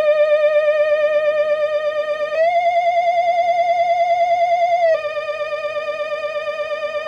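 Looping spooky Halloween sound effect: an eerie, theremin-like electronic tone warbling with a steady vibrato. It slides up to a higher note about two and a half seconds in and back down to the lower note about five seconds in.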